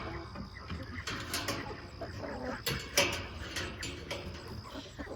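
Chickens clucking softly against a steady insect trill, with scattered clicks and knocks.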